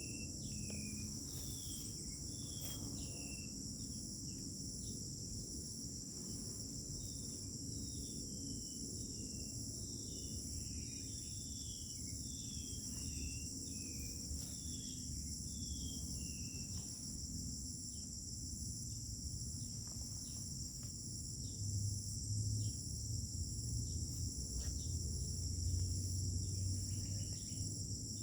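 Crickets chirring steadily in several high, unbroken tones, while a bird calls in quick series of short falling notes through the first half and once more near the end. A low rumble rises under them from about two-thirds of the way in.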